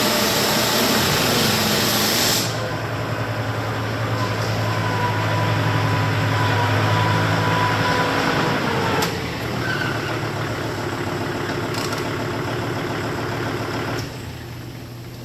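Tractor engine running as the tractor drives in and pulls up, with a loud hiss over it for the first couple of seconds. The engine sound steps down sharply near the end.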